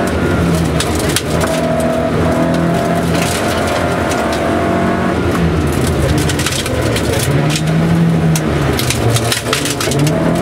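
Rally car engine heard from inside the cabin on a gravel stage, revving hard and dropping several times as the driver shifts and lifts. Gravel and stones clatter against the underbody in sharp ticks.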